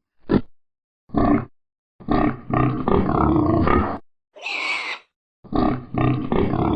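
Vietnamese pot-bellied pig grunting: two short grunts, then about two seconds of rapid, run-together grunting. A short, higher breathy call follows, and a further run of grunts comes near the end.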